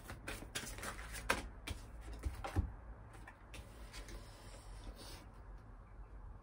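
A deck of oracle cards being handled and shuffled over a wooden table: a quick run of light card clicks and taps for about three seconds, then only a few fainter ones.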